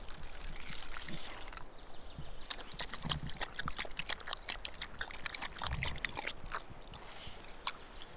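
Dog chewing a small meaty bone: a quick, irregular run of sharp cracks and clicks.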